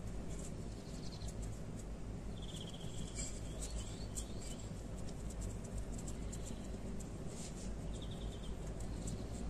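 Faint high chirping trills, each a quick run of pulses, heard twice: about two seconds in and near the end. A few short gliding chirps follow the first, over a steady low hum of room noise.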